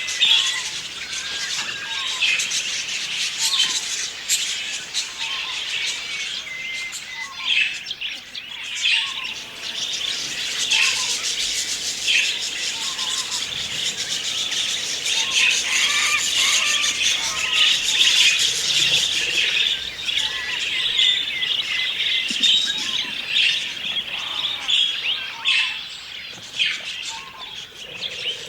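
Budgerigars chattering, warbling and chirping continuously, with many quick calls overlapping.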